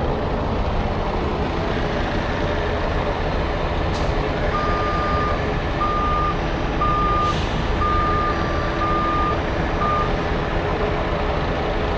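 A heavy truck's reversing alarm beeps six times, about once a second, starting about halfway through, over the steady low rumble of idling heavy truck engines.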